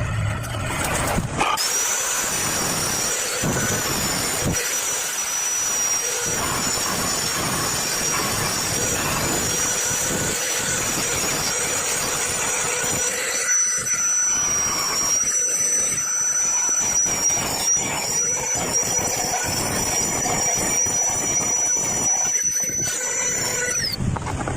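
A small motor, such as that of a homemade power tool, running with a steady high-pitched whine over a hiss. The whine starts about a second and a half in and stops shortly before the end.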